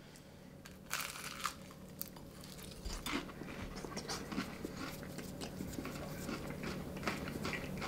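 Someone biting into crispy deep-fried chicken: a few crunchy bites about a second in, then quieter chewing.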